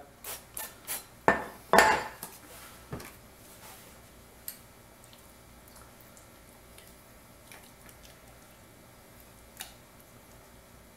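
Ceramic baking dish and glass mixing bowl clinking and knocking as they are handled on the countertop, a few sharp knocks in the first two seconds with the loudest about two seconds in. Then faint scraping of a spatula pushing thick crab dip mixture out of the glass bowl into the dish, with an occasional light tick.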